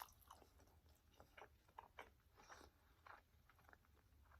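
Faint chewing of a bite of turkey sausage dipped in sauce: soft, irregular wet mouth clicks, a few a second.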